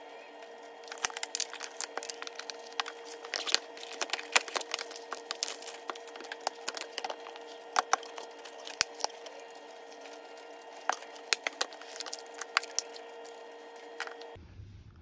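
Hands handling an iPad Pro, its keyboard case and the box packaging: irregular clicks, taps and crinkles, over a steady hum.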